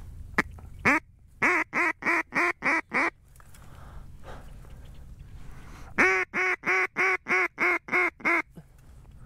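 Duck call blown in two runs of loud, evenly spaced mallard-style quacks, about three a second: a short run about a second and a half in and a longer one past the middle.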